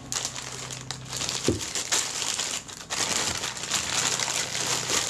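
Clear plastic bag of camera parts crinkling and rustling as it is handled, in two long stretches with a brief lull about three seconds in. A soft knock comes about one and a half seconds in.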